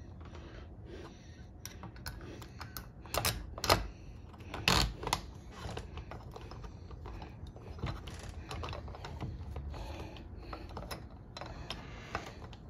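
Irregular small clicks and knocks of a deadbolt's metal parts being handled and fitted against a door, louder in a few sharp clusters about three to five seconds in.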